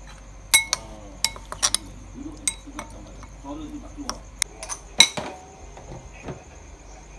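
Metal spoon clinking against a glass bowl while stirring chicken pieces in a marinade: a series of sharp, ringing clinks, loudest about half a second in and again about five seconds in.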